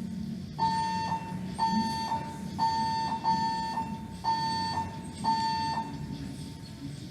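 Building fire alarm system sounding its electronic alert tone during a test. It is a steady high tone pulsed on and off in repeated beeps, about one a second, with short pips between the longer beeps.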